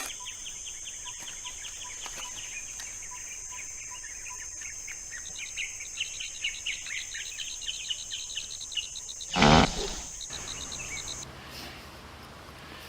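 Birds chirping over a steady high insect drone, with a row of short, evenly spaced pips. About nine and a half seconds in, one brief loud low blast cuts across them. The chirping has stopped by then, and the drone ends about two seconds later.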